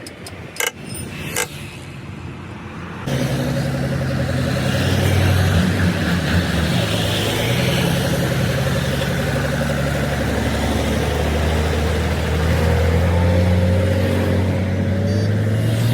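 Heavy truck engine running steadily under way, after a few sharp clicks; the engine sound comes in abruptly about three seconds in.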